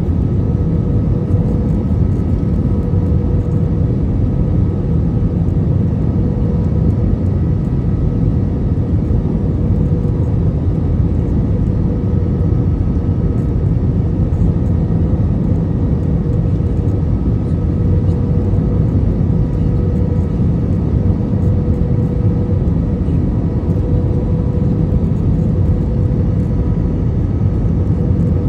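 Airbus A320 cabin noise from a window seat over the wing on final approach: the engines and rushing airflow make a steady, even rumble with a faint constant whine above it.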